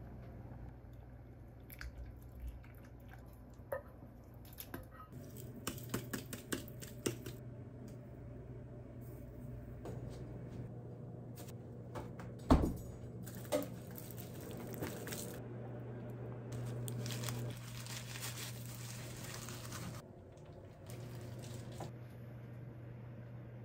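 Kitchen food-handling sounds: soft clicks, taps and squishy rustles of food being placed and handled by hand, over a steady low hum, with one sharp clunk about halfway through.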